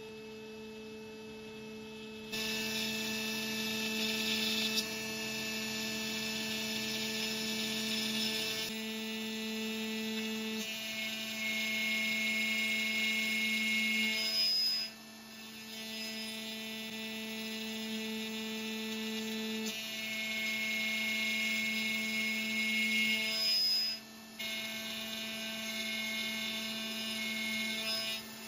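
Makera Carvera Air desktop CNC spindle running at 12,000 RPM, driving a single-flute carbide end mill that slots a 1/8-inch 6061 aluminum plate: a steady whine of several tones with cutting noise. It is quieter at first, gets louder about two seconds in, and drops out briefly twice, about halfway through and again later.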